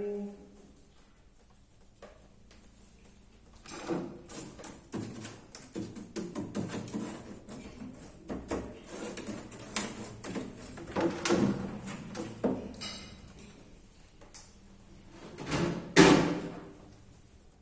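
Knocks and clatters of refrigerator parts and contents being handled during cleaning, coming in an uneven run. The loudest is a sharp knock near the end.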